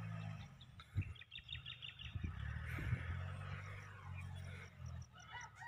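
Birds chirping in short calls over the steady low hum of a Kubota tractor's diesel engine working a rotavator some way off.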